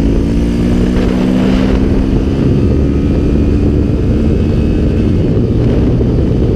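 Honda XRE 300's single-cylinder engine running steadily at road speed, its tone sinking slightly and fading into the background about halfway through. Heavy wind rush on the microphone runs underneath throughout.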